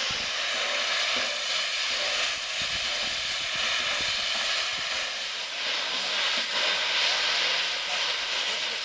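Steady hiss of escaping steam from the standing LNER Peppercorn A1 Pacific steam locomotive 60163 Tornado.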